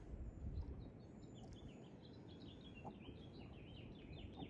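A small songbird singing a quick run of short, high chirping notes, starting about a second and a half in, over a low steady rumble.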